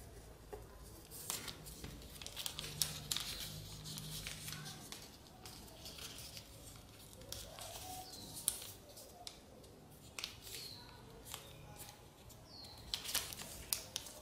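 A sheet of origami paper being folded and creased by hand: irregular crisp rustles and sharp crinkles as the folds are pressed flat.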